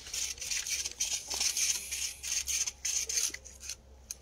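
Close rustling and scraping noise that comes and goes unevenly in quick strokes, then dies down near the end.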